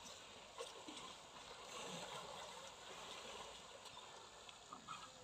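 Faint, steady rush of shallow river water as a herd of Asian elephants wades through it, with a few faint short sounds on top.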